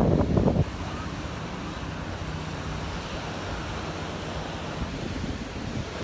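Ocean surf washing on the beach, with wind buffeting the microphone. A loud rush of noise stops about half a second in, then a steady wash of waves and wind.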